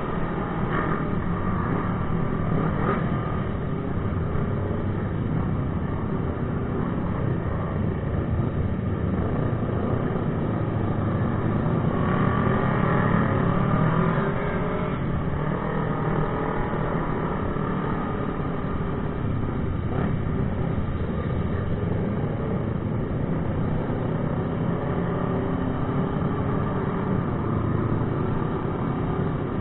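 Several motorcycle engines running together as a group of sport bikes rides along, heard from one of the bikes. The engine note rises and falls as riders rev, with a louder stretch of revving about halfway through.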